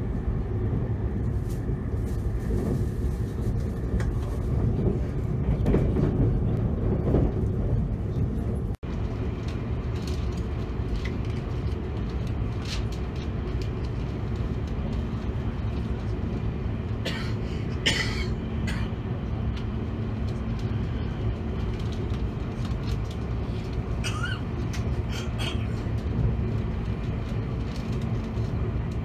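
Cabin noise inside a JR East E257-500 series limited express running at speed: a steady low rumble of wheels on rail with scattered clicks, and brief higher scraping sounds now and then. The sound cuts out for an instant about nine seconds in.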